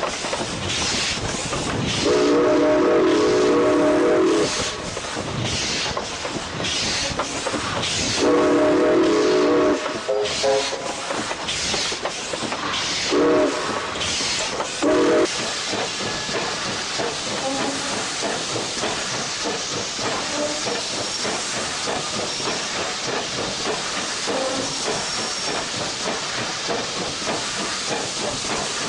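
Steam locomotive whistle blowing two long blasts and then two short toots, over steam hissing in rhythmic puffs about two a second that settle into a steady hiss.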